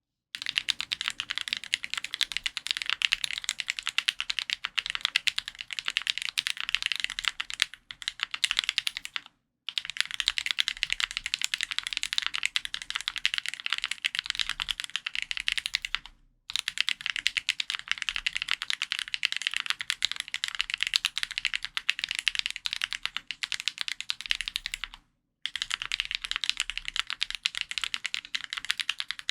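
Custom F1-8X mechanical keyboard with Krytox-lubed Kailh Box Blueberry Cream Pro linear switches, GMK keycaps and an aluminium plate, typed on rapidly in long runs of keystrokes. The typing breaks off three times for a brief pause.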